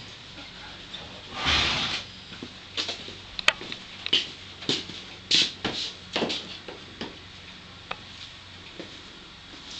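Scattered short clicks and knocks of tack and handling around a horse standing in cross-ties, with a brief rustle about a second and a half in.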